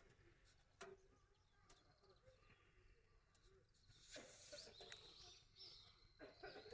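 Near silence, with a faint click just under a second in and a few faint high chirps later on.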